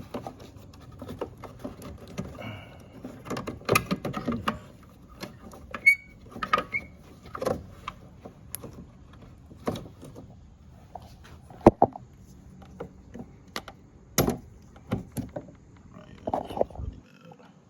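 Hands handling a tail light bulb socket and bulbs: irregular plastic clicks, taps and knocks, a few sharper ones standing out.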